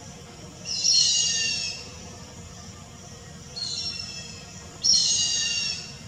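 Grey hornbill calling: three high calls, each falling slightly in pitch. The first and last last about a second each; the middle one is shorter and fainter.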